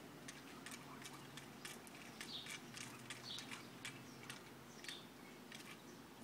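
Faint, irregular ticks and clicks, a few a second, with some short high chirps in the middle, over a low steady hum.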